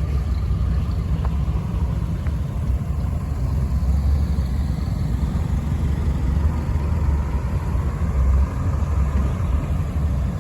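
Car engines running at low parade speed: a steady low rumble.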